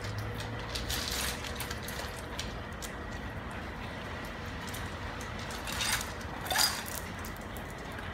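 A dog eating dry kibble from a stainless steel bowl: crunching, with pellets clicking against the metal. A brief louder noise comes about six and a half seconds in.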